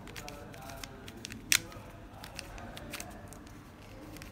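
Qiyi silver mirror cube being turned by hand: a run of quick clicks as its plastic layers turn and snap into place, with one sharp, louder click about a second and a half in.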